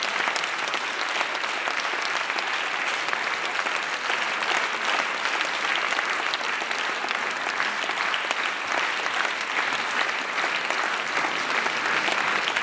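Audience applauding: dense, steady clapping from a large hall.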